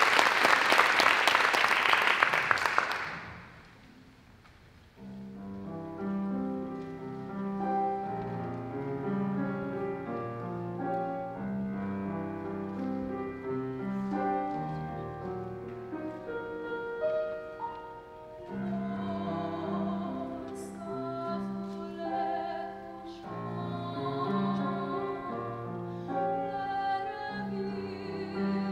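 Applause that dies away about three seconds in; after a short hush, a grand piano begins a classical introduction of chords with a moving melody line.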